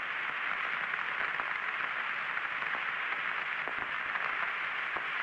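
Steady radio static: the hiss of the open air-to-ground voice channel between transmissions, narrow in range like a radio link, with a few faint clicks.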